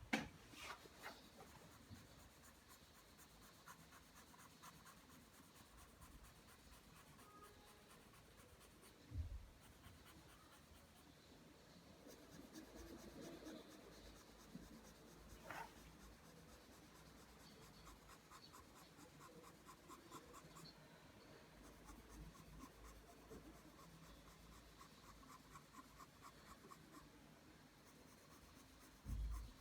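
A pencil drawing lines on paper: faint, steady scratching in quick repeated strokes. Two soft low knocks come about nine seconds in and near the end.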